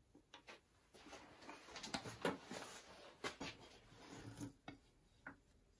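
Handling noise on a wooden workbench: a few light clicks, then scraping and rustling with several knocks as a wooden block is laid down and a steel try square is picked up and moved, and a couple of single taps near the end.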